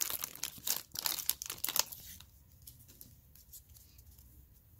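Foil wrapper of a Donruss football card pack crinkling and tearing as it is pulled open and the cards are slid out. The rustling stops about two seconds in, leaving only a few faint ticks of the cards being handled.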